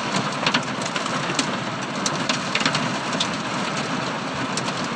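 Heavy rain pelting a stopped car, a dense steady hiss with many sharp ticks of drops striking the body and glass, heard from inside the cabin.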